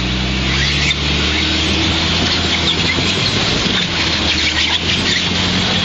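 Lifted Jeep Cherokee XJ's engine running steadily as it is driven forward onto the rock ledge, then a dense rushing, scraping noise of the tyres working on the rock takes over from about two seconds in.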